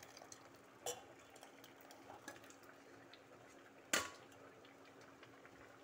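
Thick cucumber kootu being tipped from a steel cooking pot into a steel bowl: soft scraping and sliding of the thick stew, with a light metal clink about a second in and a louder metal knock about four seconds in.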